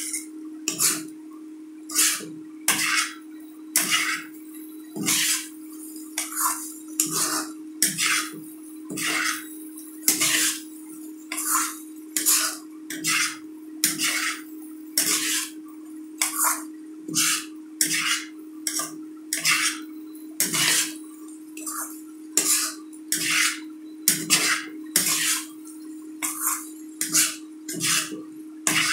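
Spatula scraping and tossing fried potato strips around a frying pan, a stroke a little more than once a second, over a steady low hum.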